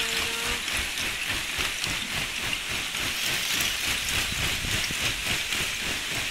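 Ice shove: the melting ice sheet of a lake pushed ashore by wind and waves, its broken ice grinding and tinkling in a continuous dense crackle.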